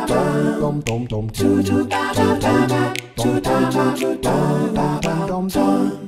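Background music: a cappella singing, several voices layered, with sharp clicks marking the rhythm.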